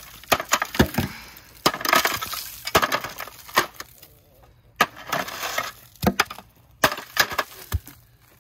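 A kukri chopping into a block of ice: a run of irregular, sharp strikes, some followed by a short crunch as the ice cracks and splits and chunks break away.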